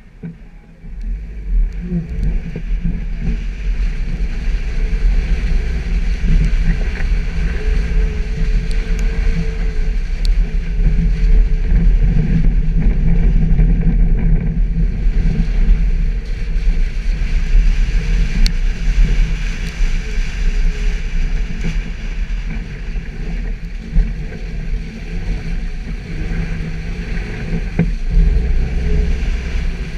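Suzuki Jimny driving off-road: the engine runs under a heavy, steady low rumble that comes in about a second in and stays loud, with small knocks from the rough ground.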